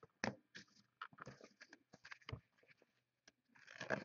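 Basketball trading cards being slid off a stack by hand: a faint run of short scrapes and clicks, with a longer sliding scrape near the end.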